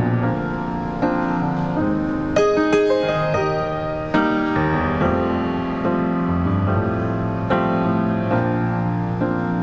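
Piano playing the introduction to a slow gospel song: held chords changing about once a second, with a short run of high notes about two and a half seconds in.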